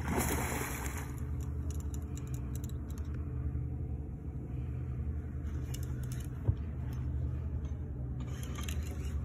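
Steady low hum of an idling boat engine. In the first second it is joined by a splash as a hooked sturgeon thrashes at the surface.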